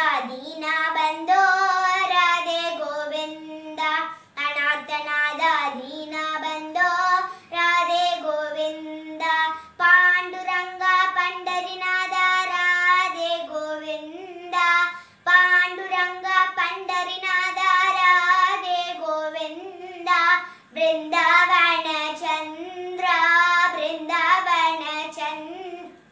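A young girl singing a Radhe Krishna devotional bhajan alone, with no accompaniment. She holds long notes with small wavering ornaments and takes short breaths between phrases.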